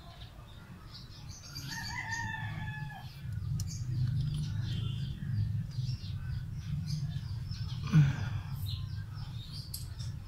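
Hand-tool clicks and clinks from a valve spring compressor being worked on a Toyota 5K engine's valve springs, with one sharp knock about eight seconds in. A bird calls once in the background near two seconds in, over a steady low hum.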